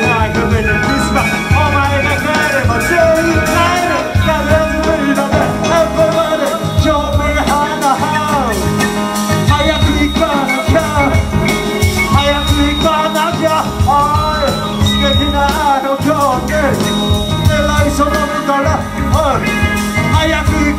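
Live band playing an upbeat groove on drums, electric bass, keyboard and cuica, with a rapper's vocal over it through the PA.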